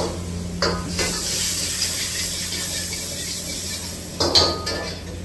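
Metal ladle clanking and scraping in a wok as the honey chilli potatoes are tossed, a few sharp clanks about a second in and again near the end, over a steady hiss of the frying and burner.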